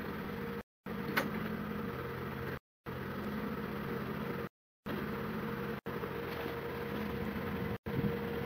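Jeep Wrangler JK engine running at low revs as it crawls down a rocky trail, a steady low hum with a sharp click about a second in. The audio cuts out briefly several times.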